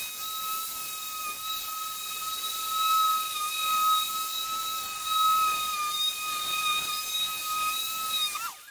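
Electric dual-action polisher with a foam pad running with a steady high whine and hiss while buffing cutting compound on a car hood. It stops abruptly near the end.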